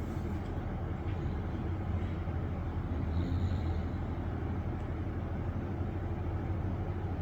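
A sleeping pet snoring, a low steady rumble. The owner puts the heavier snoring down to the collar it is wearing.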